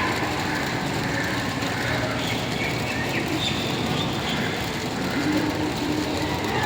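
Steady rumbling background noise with faint voices.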